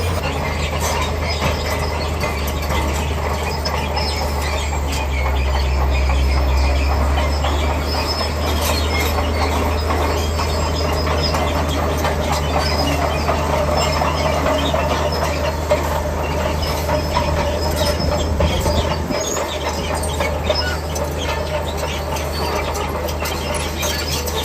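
Komatsu D41P crawler bulldozer at work: its diesel engine runs steadily under a low drone while the steel tracks clatter and squeal and rock knocks and grinds under the blade.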